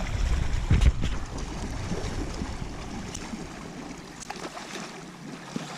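Flowing river water with wind buffeting the microphone; the low wind rumble eases off a little past halfway.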